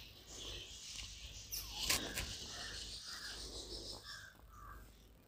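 Quiet outdoor ambience of insects and birds chirping, with a brief rustle or knock about two seconds in.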